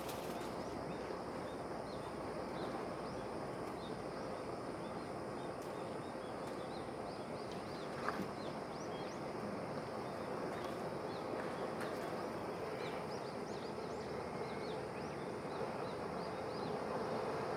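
Outdoor ambience: a steady background hiss with many short, high bird chirps, and a single click about eight seconds in.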